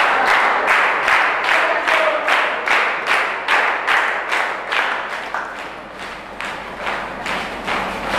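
A group of people clapping together in a steady rhythm, about two and a half claps a second.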